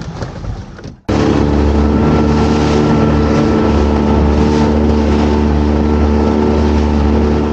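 Small boat's outboard motor running steadily at cruising speed, a constant even engine note with a hiss of wind and water over it. It cuts in suddenly about a second in.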